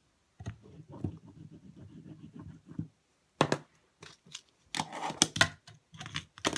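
A fingerboard rolls and scrapes along a wooden ledge for a couple of seconds, grinding wear marks into the board. Then come a few sharp clacks as the board pops and lands on the desk.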